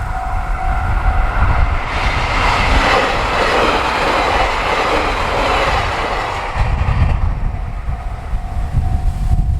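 A Japanese level-crossing alarm rings in a repeating steady tone while a train runs over the crossing. The train's rushing wheel and running noise dominates from about two seconds in to about seven seconds in, then falls away, leaving the alarm ringing again near the end.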